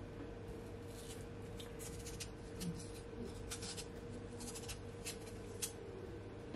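Short, light scraping strokes of a kitchen knife shaving the skin off a raw potato, irregularly spaced, over a faint steady hum.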